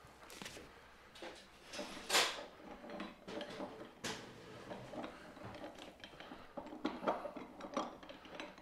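Scattered clinks and knocks of a sausage stuffer being handled as its canister is packed with ground meat. The loudest knock comes a little after two seconds in, another at about four seconds, and a few more near the end.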